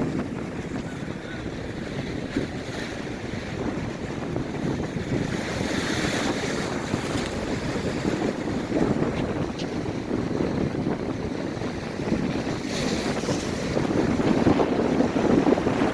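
Surf breaking on a sandy beach in rough, high waves, with strong wind buffeting the microphone as a steady low rumble.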